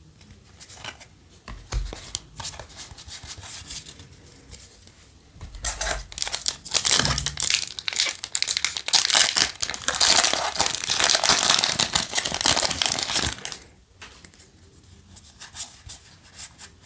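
A Yu-Gi-Oh! booster pack's foil wrapper being torn open by hand: loud crinkling and tearing from about five seconds in until about thirteen, with lighter rustling of the wrapper and cards before and after.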